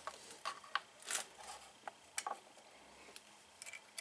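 Faint, irregular clicks and ticks of a Briggs & Stratton starter pinion gear being turned and worked by hand on the electric starter's shaft.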